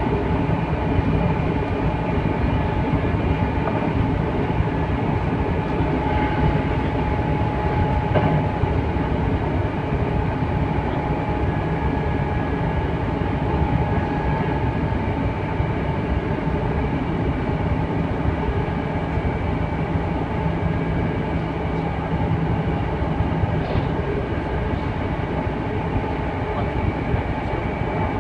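Hankyu electric train running at a steady speed, heard from inside the leading car: a steady rumble of wheels on rail with a constant high whine.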